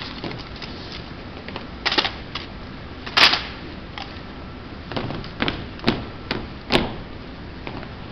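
Drill rifles being handled during exhibition rifle drill, with boots striking the hard floor: a string of separate sharp clacks and smacks, the loudest a little past three seconds in and a quicker run between five and seven seconds.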